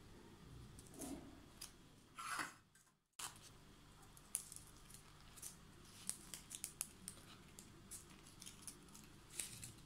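Faint crinkling and rustling of paper cupcake liners as hands handle the cupcakes and peel one liner off, with small light ticks. The sound cuts out completely for a moment about three seconds in.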